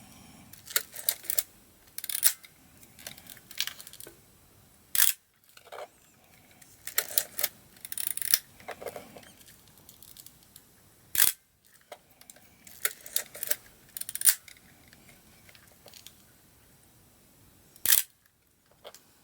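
Pentax SLR camera being operated: a series of short mechanical clicks, with three sharp, louder shutter releases about six seconds apart and smaller handling clicks between them.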